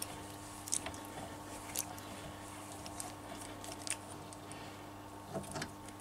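A handful of light metal clicks and ticks as a thread-cutting die in its die stock is wound back off a freshly threaded 3/8-inch EN16T steel stud held in a bench vice, over a faint steady hum.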